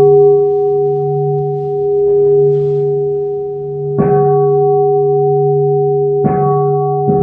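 Buddhist temple bowl bell struck three times, about four seconds in and twice close together near the end. Each strike rings out in a long, steady, humming tone that is still sounding when the next strike comes.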